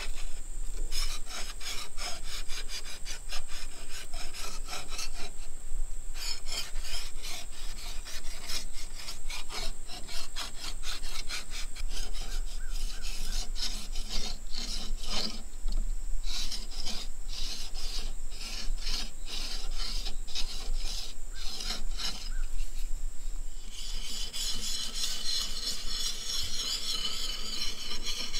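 A hand file is drawn in repeated strokes along a steel blade clamped in a bench vise, rasping as it sharpens the edge. The runs of strokes are broken by a few short pauses. Near the end the rasp turns higher and more continuous.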